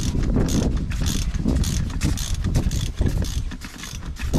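Hand ratchet clicking in repeated short strokes, about two to three a second, as a coil-spring nut on a suspension strut is wound off to release the spring. The strokes grow sparser and quieter near the end.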